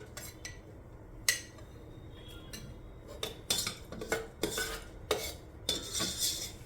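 A spoon stirring in an electric kettle, scraping and clinking against the pot as cumin, garlic and dried red chilli fry in oil. One sharp clink about a second in, then repeated irregular scrapes and clinks from about three seconds on.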